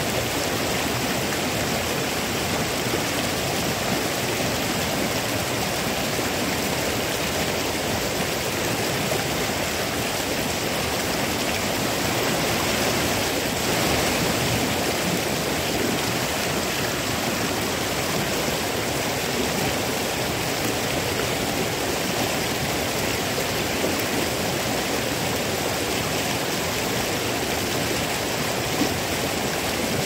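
Shallow rocky stream running over stones, a steady rush of water.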